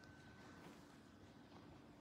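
Near silence: room tone, with a faint high steady tone dying away within the first second.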